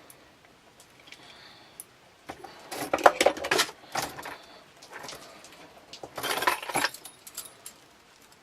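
Steel conibear trap and its wire trigger being handled: metal clinking and rattling in two bursts, about two to three and a half seconds in and again around six seconds, as the wire is worked into its seat.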